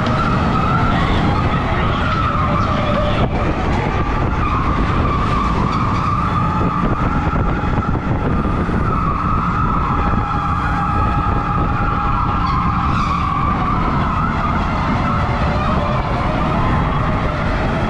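Electric go-karts running at speed: a high motor whine that wavers as they speed up and slow down, over a rough low rumble from tyres and chassis. A second, lower whine joins for a few seconds past the middle.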